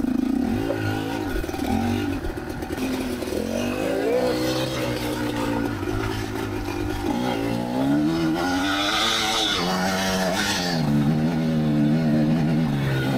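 Kamax 250 single-cylinder two-stroke dirt bike engine being ridden over a trail, revving up and down with the throttle. It settles to a steadier, lower note near the end.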